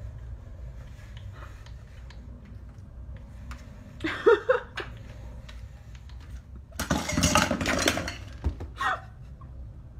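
A cat pawing at a glass door from outside, the door rattling and clinking in a few bursts, loudest about seven to eight seconds in, over a steady low hum.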